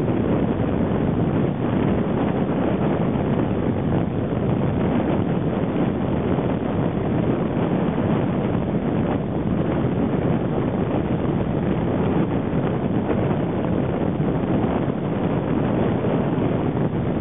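Wind buffeting the microphone, a steady rumbling noise, over small surf washing up the beach.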